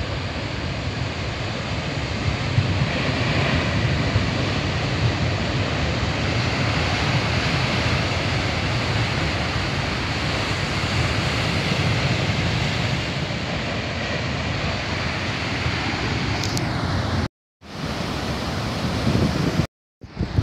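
Heavy storm surf breaking and washing over a rocky volcanic shore, a steady, loud rush of waves. Near the end the sound cuts out briefly twice.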